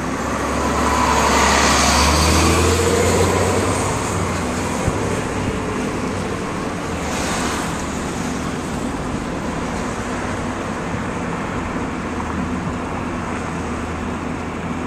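Traffic noise from a moving car: a city bus passes close alongside, its low engine hum and tyre noise swelling to a peak about two seconds in and fading by about four seconds. Another vehicle swishes past about seven seconds in, over steady road noise.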